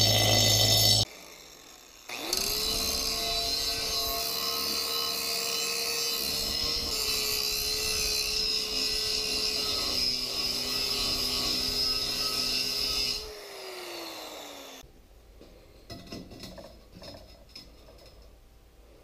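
A Porter-Cable bench grinder grinding steel tubing for about a second, then, after a cut, a handheld angle grinder spins up, grinds rusty square steel tubing steadily for about eleven seconds and spins down. Quieter handling knocks follow near the end.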